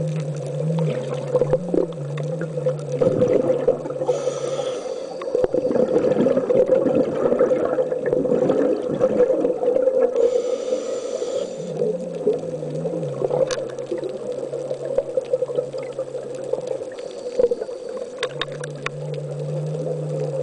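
Underwater ambience on a scuba dive: rushes of regulator exhaust bubbles about four seconds in and again around ten seconds, over a steady hum and a low wavering drone that comes and goes.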